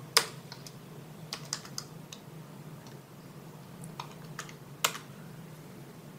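A computer keyboard being typed on in a few scattered key presses, such as backspace and enter while editing text, over a low steady hum. Two of the presses are louder, one just after the start and one near 5 seconds.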